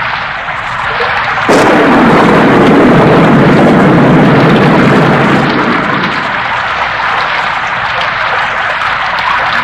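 Heavy rain falling steadily, with a sudden loud thunderclap about a second and a half in that rumbles on for several seconds and then fades.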